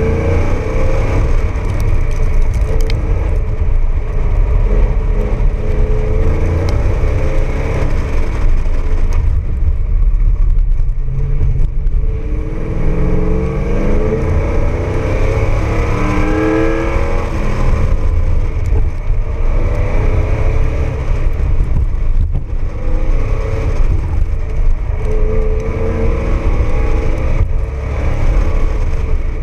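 Pontiac Firebird Trans Am engine under hard acceleration, its pitch sweeping up and dropping back again and again as the car accelerates and lifts for turns. It is heard from outside behind the front wheel, over a constant low rumble of wind and tyre noise.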